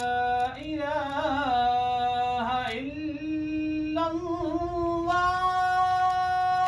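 A man's solo voice chanting the adhan, the Islamic call to prayer, in long melismatic phrases. It holds a steady note, breaks into ornamented wavering turns, and climbs to a higher note held from about two-thirds of the way in.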